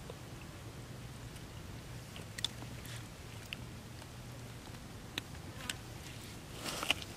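Hands working in shallow muddy water, making small wet clicks and splashes, with a denser burst of splashing near the end, over a steady low hum.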